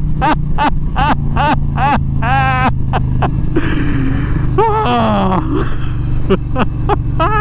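Indian Challenger's V-twin engine running steadily under way, with short voice sounds from the rider over it.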